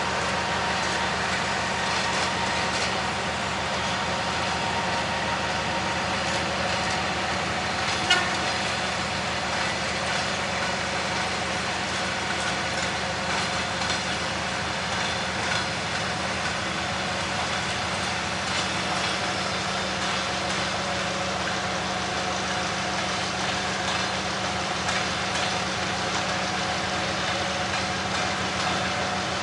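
Locomotive running steadily, a constant mechanical hum with a low drone and a few fainter higher tones. A single sharp knock about eight seconds in.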